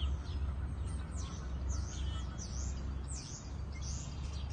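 A flock of purple martins calling in flight: many short, sweeping chirps overlapping several times a second, over a steady low rumble.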